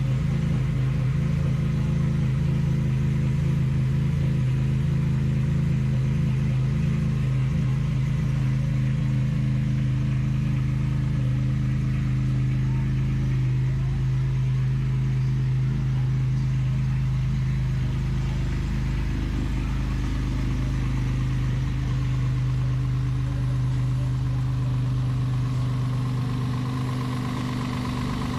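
Honda Accord's P2R Racing stroker four-cylinder engine idling steadily on its first start. It evens out a little as fuel pressure is turned up at the regulator.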